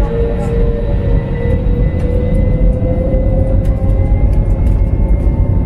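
Airbus A321neo's jet engines heard from inside the cabin: a loud steady rumble with an engine whine that slowly rises in pitch as the engines spool up. Faint light rattles come in during the second half.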